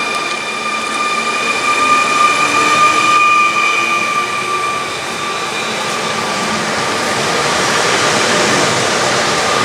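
Pesa Elf II electric multiple unit moving through the station with a steady high-pitched whine at two pitches, sagging slightly after about three seconds. Rushing running noise swells toward the end.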